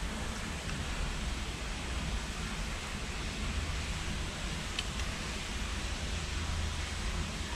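Steady low rumble and hiss of the ambience inside an iron-pipe storm-water tunnel, with one faint click about five seconds in.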